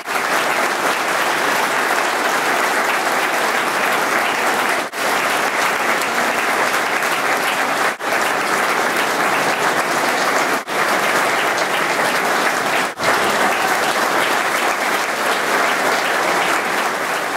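Large audience applauding steadily, hands clapping in a continuous dense patter, with four brief dropouts.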